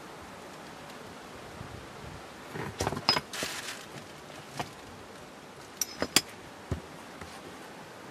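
Small steel differential parts, a pinion shaft and its roll pin, clicking and clinking lightly as they are handled, over a steady hiss. There are two short clusters of clicks, about three and six seconds in, and a couple of the clinks ring briefly.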